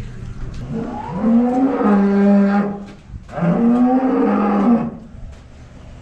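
Dairy cow mooing: two long calls of about a second and a half each, the first starting about a second in and the second following after a short breath.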